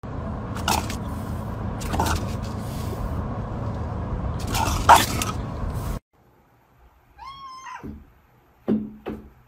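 Steady low road rumble inside a moving car's cabin, with a few short sharp sounds, cutting off suddenly; then a cat meows once, the call falling in pitch at its end, followed by two short knocks.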